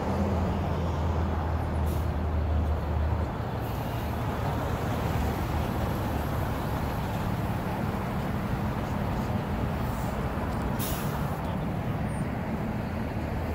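Diesel engine of a flatbed tow truck running as the truck pulls up, with a strong low drone for about the first three seconds, then a steadier rumble. A short hiss comes about eleven seconds in.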